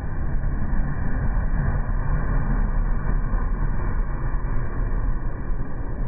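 Steady, loud rushing noise of a water ride's splashdown spray, strongest in the low end and without separate splashes.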